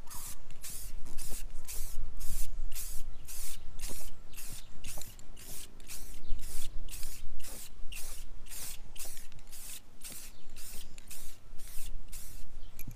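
Rhythmic hissing from refinishing work on a carbon-fibre car hood: short strokes of hiss repeating evenly, about three a second.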